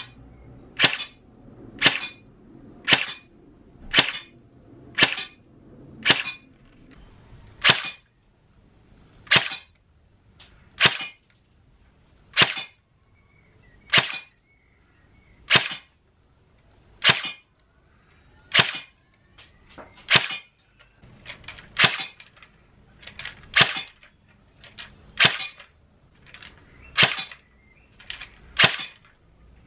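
HK416C electric airsoft replica (AEG) firing single shots on semi-auto, one sharp crack at a time. About twenty shots, roughly one a second at first, then slowing to about one every one and a half seconds after the first eight seconds.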